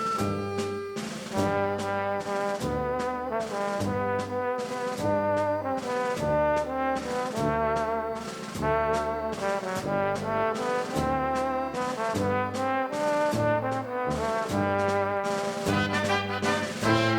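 Background music: upbeat jazzy tune led by brass over a walking bass line.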